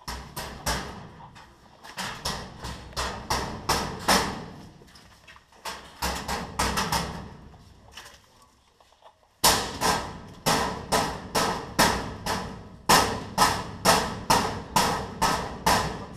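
A steady run of sharp knocks and clatters, about two or three a second, breaking off for a second or so around eight seconds in, then resuming louder and very regular.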